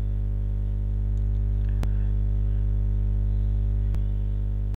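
Steady electrical mains hum with a stack of overtones, with two short clicks about two and four seconds in. The sound drops out for an instant at the very end.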